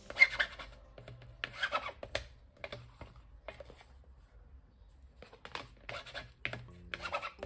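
Paper and card being handled: short scratchy rustles and scrapes in irregular clusters, the sharpest near the start, with a quieter gap in the middle.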